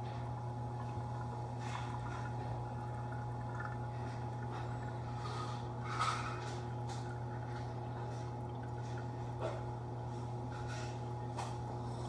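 Reef aquarium water circulation: a low steady pump hum with trickling, dripping water and several short splashy noises, the loudest about six seconds in.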